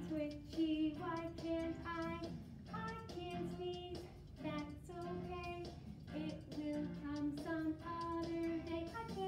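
A high voice singing a melody in short held notes, with musical accompaniment.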